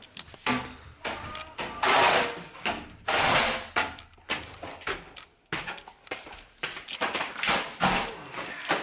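Flat-pack IKEA Hemnes daybed boards and cardboard packing being shifted and slid over a wooden floor: repeated scraping and rustling, each about half a second long, with knocks of wood between them.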